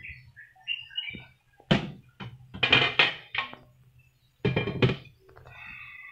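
Several sharp knocks and clatters of kitchenware, in two bursts: one from about two to three and a half seconds in, and another around four and a half seconds in.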